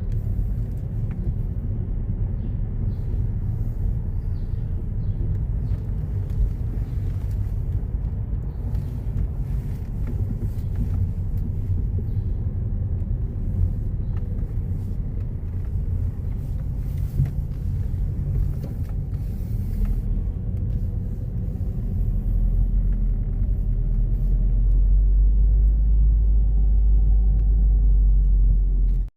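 A car driving, heard as a steady low road and engine rumble inside the cabin. The deep rumble grows heavier over the last several seconds.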